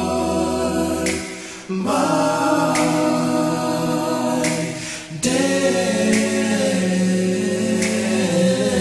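Male vocal group singing a cappella, holding long chords in close harmony, with short breaks between the held chords about two and five seconds in.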